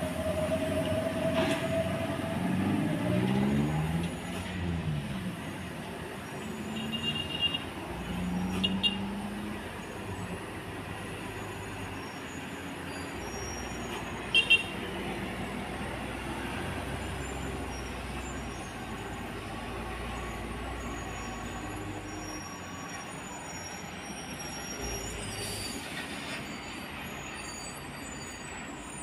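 Heavy diesel truck engines running at low speed through a steep hairpin bend, the engine note rising and falling in the first few seconds. A couple of short, high horn beeps come near the middle.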